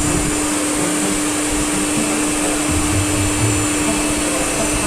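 CNC router spindle running at a steady speed: a steady whine over an even hiss.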